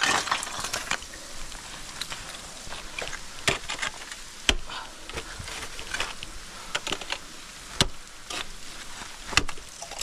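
Ice axe picks striking and biting into frozen waterfall ice and crusted snow, about five sharp hits spaced unevenly, with crunching and scraping of ice and snow and loose ice chips trickling down between them.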